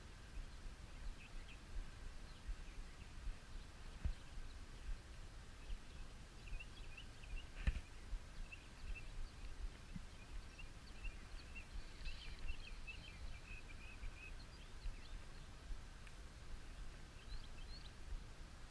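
Quiet outdoor ambience: distant birds chirping, thickest in the middle, over a low steady rumble, with a single sharp knock about eight seconds in.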